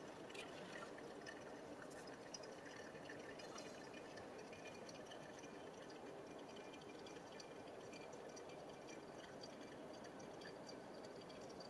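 Brewed coffee draining through the paper filter of a Hario copper V60 dripper during the drawdown: a faint, steady trickle with scattered small drips and ticks.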